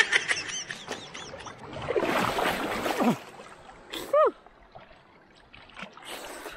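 Seawater splashing around people wading and swimming, the biggest splash about two seconds in and lasting about a second, with a short shout at the start and a brief rising-and-falling cry near the middle.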